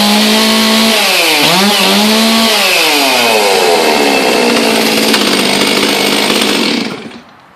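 Stihl 036 two-stroke chainsaw running at high revs. About a second and a half in, its note dips briefly and picks back up, then the revs fall steadily toward idle. The engine cuts off about seven seconds in.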